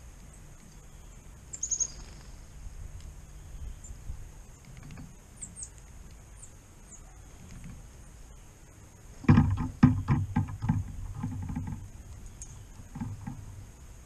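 A woodpecker pecking at a suet cake in a wire cage feeder close to the microphone: about nine seconds in, a quick run of loud sharp knocks for about a second and a half, followed by a few softer ones. Faint high bird chirps come earlier.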